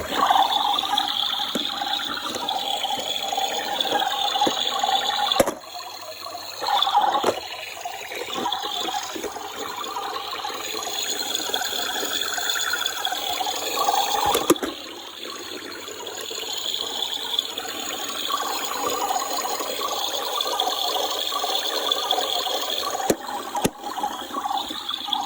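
Toy washing machine running a wash cycle, making a steady rushing, water-like sound that dips and changes every several seconds.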